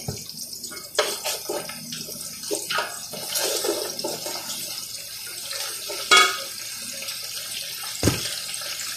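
Spice containers and a canister being handled and opened: scattered clicks and knocks, a ringing clink about six seconds in and a thump near the end. Under them runs a steady rushing hiss like running water.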